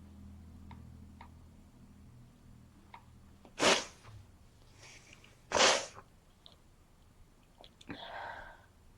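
A person with a head cold sneezing twice, two loud sharp sneezes about two seconds apart, followed near the end by a quieter breathy sound.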